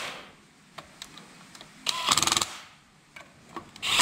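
Cordless drill-driver briefly spinning a screw in a motorcycle engine case: a short, fast ticking whir about two seconds in and another at the very end, with a few light clicks of bit and screw between.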